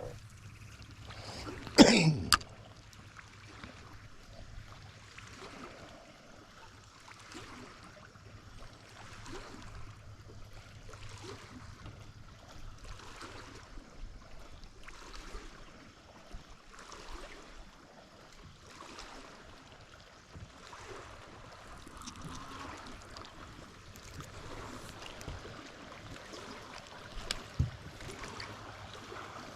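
Small waves lapping softly against a boat hull, in faint splashes about once a second. One brief loud burst like a throat clearing about two seconds in.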